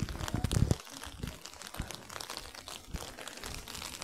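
Handling noise from a handheld phone carried while walking: rustling of clothing or fingers against the microphone and low thuds of the walker's footsteps, loudest in the first second.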